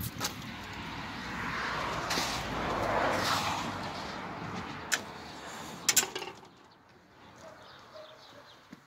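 A car passing by on the street, its noise swelling to a peak about three seconds in and fading away by about six seconds, with a few sharp clicks near the end of the pass.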